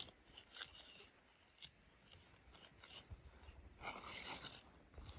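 Faint rustling and crinkling of nylon as an inflated air sleeping pad is handled and pushed into a tent, with a few small clicks and a longer rustle about four seconds in.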